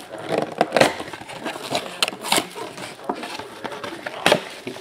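Trading card packs being opened and handled: foil wrappers crinkling and tearing and cards snapping against each other in irregular crackles, the sharpest a little after four seconds in.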